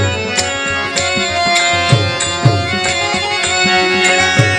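Instrumental passage of a Marathi devotional song: a tabla-type hand drum plays, its low bass strokes sliding down in pitch, over held notes from a melodic instrument, with a few sharp high strikes on top.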